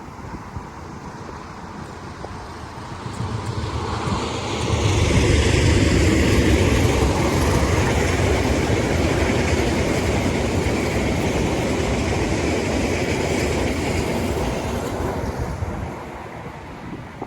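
A train passing close by: its rumble builds about three seconds in, stays loud for about ten seconds with a deep rumble and a higher rushing hiss, then fades near the end.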